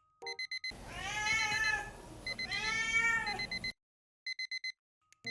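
Domestic cat meowing twice: two long, drawn-out meows that rise and fall in pitch. An electronic alarm-clock beep sounds in quick bursts before, between and after the meows.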